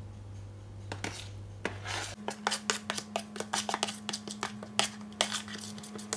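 A metal spoon scrapes and taps against a plastic mixing bowl as thick cream is scraped out into a baking tin. It is quiet at first, then from about two seconds in comes a quick run of sharp clicks and scrapes. A steady low hum runs underneath.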